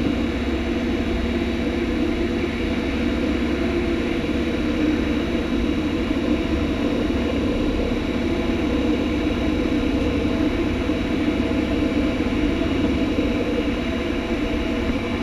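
Class 150 Sprinter diesel multiple unit running at steady speed, its diesel engine and running gear giving a steady drone with a faint high whine, heard from on board.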